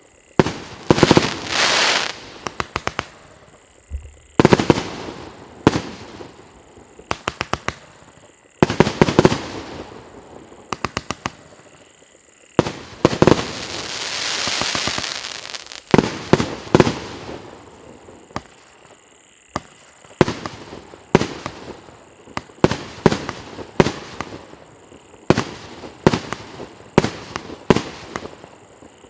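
Piroff 'Legends of the East' consumer fireworks cake firing shot after shot: sharp bangs at uneven intervals, many breaking into quick runs of crackling. About halfway through, a hiss swells up and dies away.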